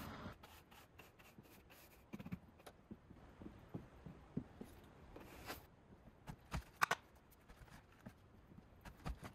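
Quiet, scattered scrapes, taps and light knocks of a broom and dustpan being worked over a camper van's floor, with a sharper knock about seven seconds in.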